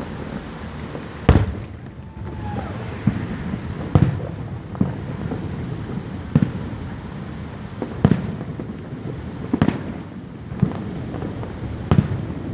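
Aerial fireworks bursting: a run of sharp booms, one every second or so, the loudest about a second in.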